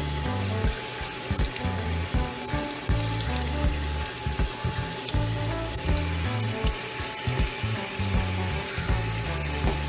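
Water running from a bathroom sink faucet and splashing onto a kitten being washed under the stream, a steady hiss, with background music underneath.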